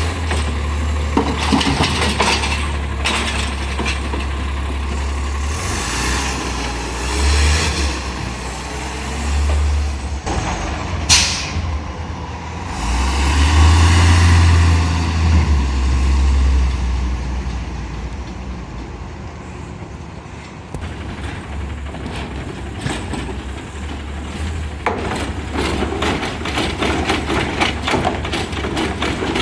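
Garbage truck with a Heil Rapid Rail side-loader running, its engine humming low, with a sharp short air hiss about 11 seconds in and the engine rising louder for a few seconds just after. Clattering and rattling near the end.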